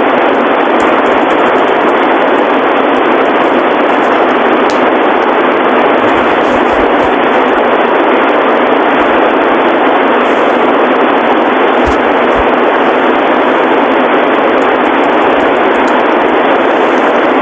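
Loud, steady static hiss from a radio broadcast, with no voice or tones, standing in for the station's audio in the middle of an Emergency Alert System flash flood warning. It is the sign of the station's feed malfunctioning.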